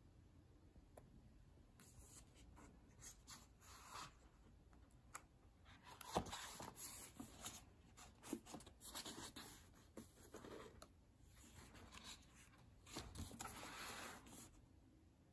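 Paper pages of a paperback book rustling faintly as they are handled and turned, in short bursts, with a sharp tap about six seconds in.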